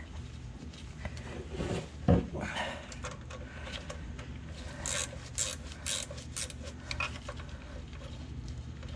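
Hand wrench turning out a starter mounting bolt: scattered small metal clicks and scrapes, with one sharper knock about two seconds in, over a steady low hum.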